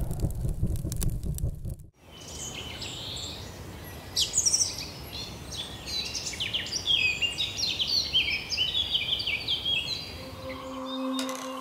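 Several birds singing and chirping, a busy chorus of short high calls over a faint steady hiss. It opens with the fading tail of a deep musical sting, and near the end a singing bowl starts ringing with a steady tone.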